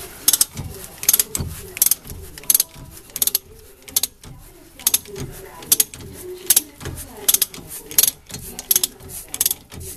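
Hand ratchet wrench being worked back and forth on a bolt, clicking in regular strokes about every three-quarters of a second, with a brief pause near the middle.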